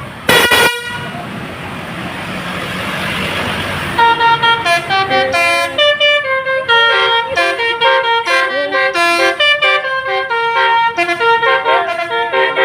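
Bus horn: one short loud blast, then a rising rush of noise, then from about four seconds in a telolet multi-tone horn playing a melody of stepped notes.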